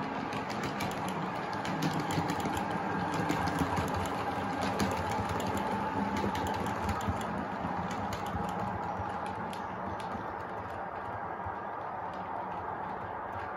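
OO gauge model of a CrossCountry Class 221 Voyager diesel unit running past: a steady diesel engine drone from its sound decoder under a rapid clicking of wheels over the model track. It is loudest as the train passes close and fades as it moves off.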